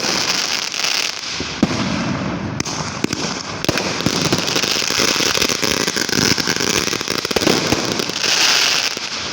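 Fireworks going off continuously: a dense stream of rapid pops and bangs over a steady rushing noise.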